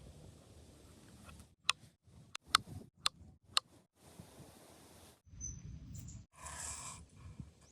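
Four sharp clicks about half a second apart among low rustling and handling noise, which stops and starts abruptly.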